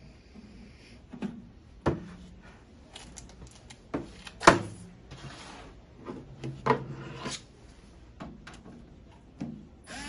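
Handling noise from a metal griddle casing and its power cable being moved and shifted: scattered knocks, taps and rubbing scrapes, the loudest knock about four and a half seconds in.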